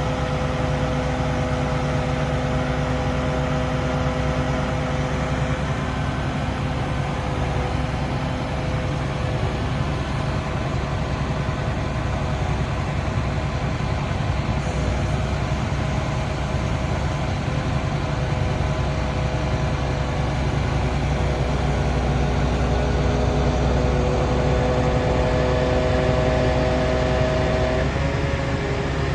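An engine running steadily with a deep rumble and a few held tones, shifting slightly in pitch about two-thirds of the way through and again near the end.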